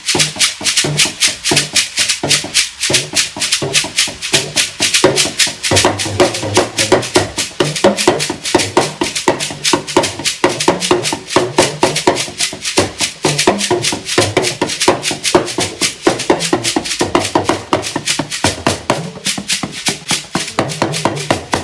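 Music driven by a fast, even shaker rhythm over a low bass line and drums.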